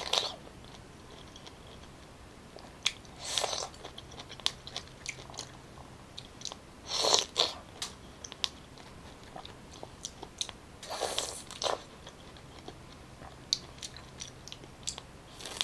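A person biting into and chewing juicy fresh pineapple. There are four louder bursts three to four seconds apart, with small clicking chewing sounds in between.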